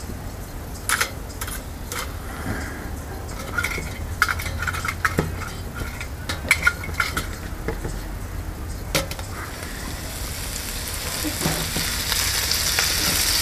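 Light metal clinks and scrapes as a fork works at the brass alcohol burner inside a stainless steel Solo Stove, with one sharper clank about nine seconds in. About ten seconds in, bacon starts to sizzle in the pan on the stove, and the sizzle grows steadily louder.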